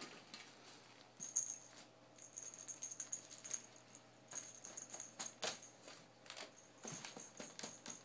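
Cat's small jingle-ball toy being batted around the carpet, its bell jingling in short spells of about a second, with a few sharp knocks as it is hit and bumps into things.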